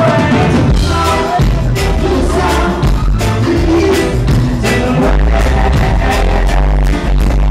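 Live reggae band playing, with a heavy bass line and a steady drum beat and a voice singing over it.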